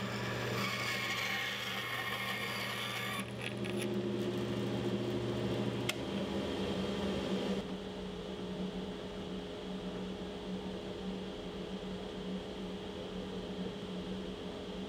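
A bandsaw cuts through a small hardwood pen blank for the first three seconds or so, a hissing cut over the motor's hum. After a cut in the footage, a benchtop drill press runs with a steady hum from about eight seconds in, as a pen blank held in pliers is drilled.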